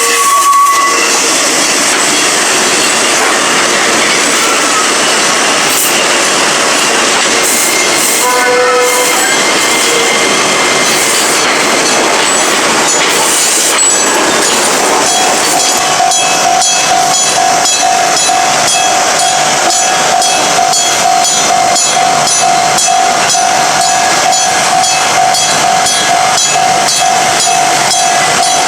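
An Enoden train running through a level crossing, with short horn-like tones near the start and again about eight seconds in. From about halfway, the crossing's electric bell rings on alone in a fast, even stream of strikes over a steady tone.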